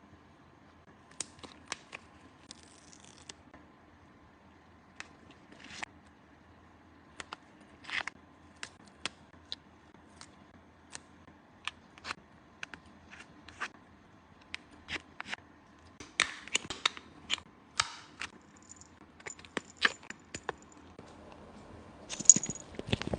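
Hands working a handmade paper squishy toy: irregular sharp clicks and snips, like scissors and craft materials being handled, coming faster in the last third, over a faint steady hum.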